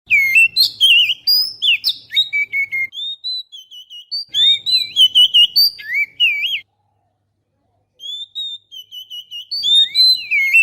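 Oriental magpie-robin (kacer) song: a rapid run of varied clear whistles and slurred notes. It stops for about a second and a half partway through, then starts again, and each run begins and ends abruptly.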